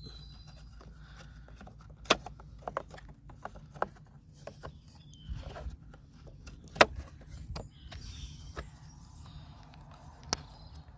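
Scattered clicks and light knocks of hands handling a plastic LED number plate light and its wiring while fitting it into a car's tailgate, the sharpest click about seven seconds in, over a low steady hum.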